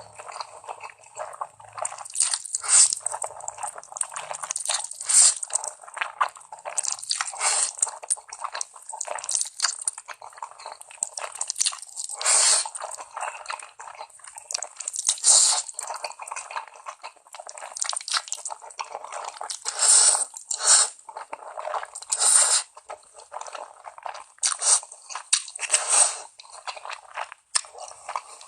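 A person eating ramen noodles: wet slurps and chewing in irregular, close-spaced strokes.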